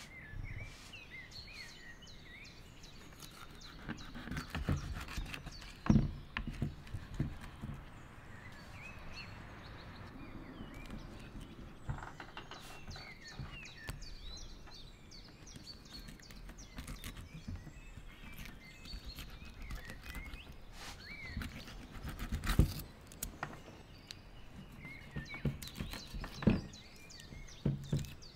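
A knife cutting mackerel on a wooden cutting board, with scraping and a few sharp knocks on the board: a cluster about five to seven seconds in and more near the end. Birds chirp throughout in the background.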